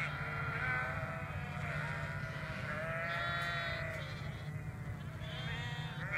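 A flock of sheep bleating: long calls from several animals, overlapping and following one another throughout.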